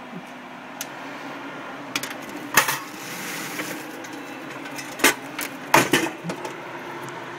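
A few sharp metallic clanks and taps as the steel kettle of a commercial popcorn machine is handled by its knob, the loudest about two and a half seconds in, over the machine's steady hum.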